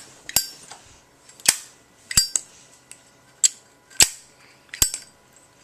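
Zippo lighter's metal lid clacking open and snapping shut again and again, sharp metallic clicks with a brief ringing, about six over five seconds.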